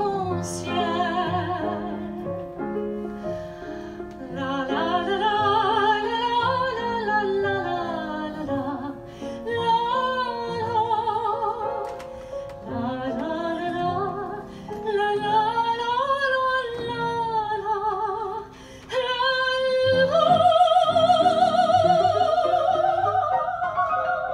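A woman singing with a wide vibrato to piano accompaniment, rising at the end to a long, loud held high note.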